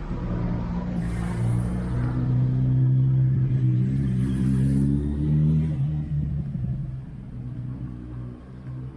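A motor vehicle's engine running close by, a low hum whose pitch rises a little and grows loudest in the middle, then eases off and fades toward the end.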